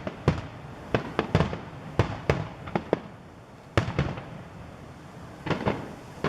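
Aerial fireworks shells bursting in a finale barrage: about a dozen sharp booms in quick clusters, with a lull of over a second before a last cluster near the end.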